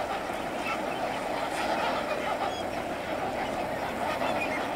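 A large flock of lesser flamingos calling together: a steady, dense chorus of many overlapping honks, with no break.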